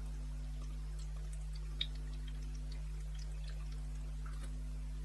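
Faint swallowing and small ticks of someone drinking from a plastic bottle, with one sharper click a little under two seconds in, over a steady low hum.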